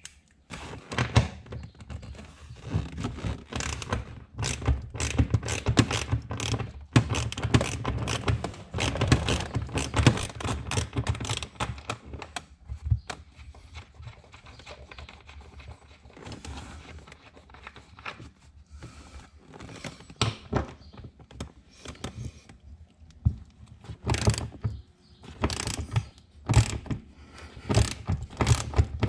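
Hand ratchet with a socket clicking as it loosens the 15 mm nuts holding a car seat to the floor, in runs of rapid clicks with occasional knocks of the tool; the clicking thins out in the middle and picks up again near the end.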